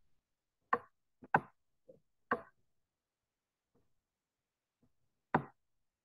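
Six short, sharp clicks, four clear and two faint, bunched in the first two and a half seconds with one more about five seconds in, and near silence between them.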